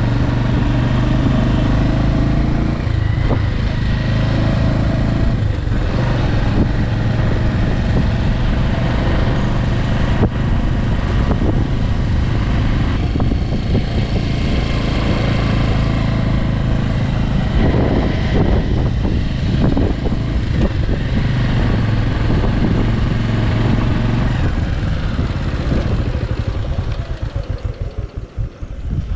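Bajaj Avenger 160 Street motorcycle's single-cylinder engine running steadily while riding. Near the end it drops back to a slow, pulsing putter as the bike slows down.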